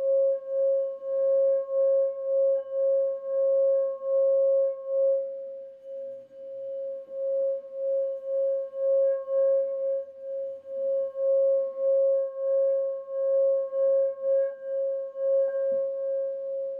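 Tibetan singing bowl sung by rubbing a wooden mallet around its rim: one steady, ringing tone with fainter higher overtones, pulsing in loudness two to three times a second with each pass of the mallet. The tone dips briefly about six seconds in and then builds again, and near the end the mallet is lifted off and the bowl rings on.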